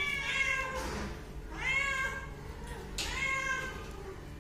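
Hungry kittens meowing for food: three meows, each under a second long, about a second apart.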